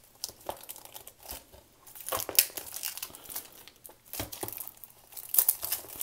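Plastic shrink-wrap being torn and pulled off a Blu-ray case, crinkling irregularly with a few sharp snaps. It picks up after about two seconds.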